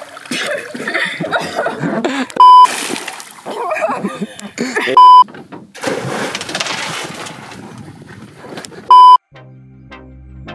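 Three short, very loud electronic beeps on a single high tone, the loudest sounds here, over splashing water. Music comes in near the end.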